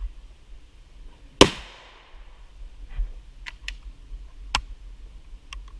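A single .22 rifle shot fired at a steel safe, sharp and loud with a ringing tail, about a second and a half in. A few faint short clicks follow over the next few seconds.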